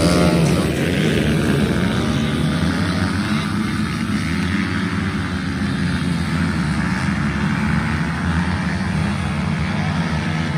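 Engines of a pack of junior racing quads at full throttle, launching off the start gate and then climbing the hill together in one dense, overlapping drone.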